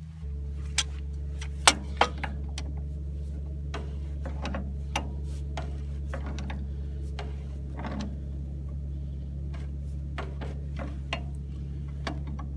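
Metal hand tools clicking and clinking on steel as channel-lock pliers tighten a backhoe hydraulic cylinder, in scattered sharp ticks with the loudest pair about two seconds in. A steady low hum runs underneath.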